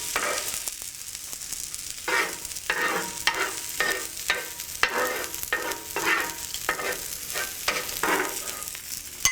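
Cooked onions being scraped out of a frying pan with a kitchen utensil, in repeated scraping strokes about twice a second starting about two seconds in, over a steady sizzle of food frying in a pan.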